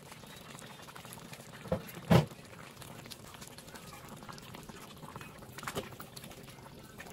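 Thick soy sauce chicken gravy bubbling at a boil in a wok, with a metal spatula knocking against the pan a few times, the loudest knock about two seconds in.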